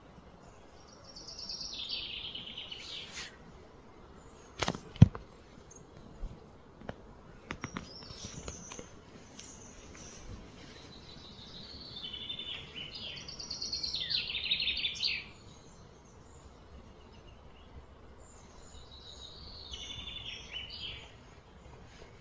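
Bird song in three bursts of fast, descending trills: about a second in, from about twelve seconds, and near the end, over a steady outdoor background hiss. A single sharp knock about five seconds in is the loudest sound, with a few fainter clicks around it.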